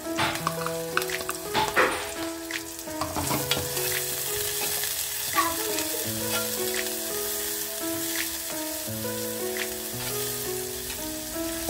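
Sliced green chillies and shallots sizzling in hot coconut oil in a clay pot, with a steady frying hiss that grows stronger about three seconds in. A metal spoon stirs and taps against the pot, mostly near the start.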